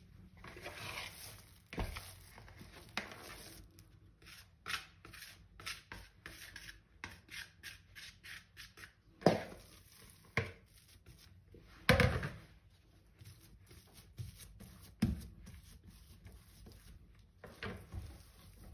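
Plastic bowl scraper rubbing and scraping risen whole-wheat dough from the inside of a bowl in many short strokes, with three sharp knocks, the loudest sounds, as the bowl is tipped over and knocked on the granite counter to turn the dough out.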